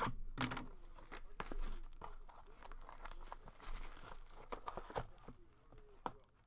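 Plastic wrap and card packaging crinkling and tearing, with small clicks and taps, as sealed trading-card boxes are opened by hand.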